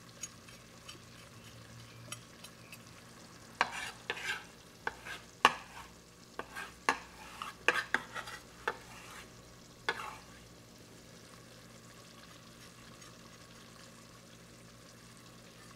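A spoon stirring a pot of gumbo, knocking and scraping against the pot in an irregular run of clicks between about 3.5 and 10 seconds in. A faint steady hum lies underneath.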